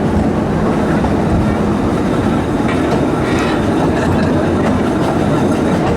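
Steam train running along the track: a steady, loud rumble with a few faint clicks of the wheels on the rails.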